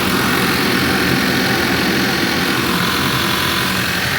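Car engine idling steadily just after an oxygen sensor replacement, while the engine computer reads the new sensor and settles from its default open-loop setting into closed loop.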